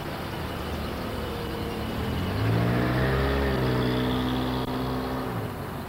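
A motor vehicle engine speeding up, its pitch rising about two seconds in and then holding steady for about three seconds before it stops abruptly, over a steady street noise background.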